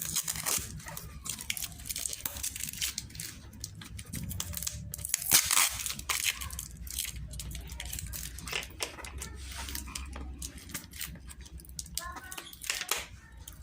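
Packaging being torn open and crinkled by hand while a fishing rod is unboxed: a run of irregular rips and rustles, loudest about five seconds in.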